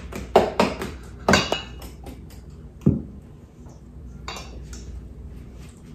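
Metal utensils clinking and scraping against stainless steel mixing bowls as a mixture is stirred: a quick run of clinks in the first second and a half, another knock about three seconds in, then softer scraping.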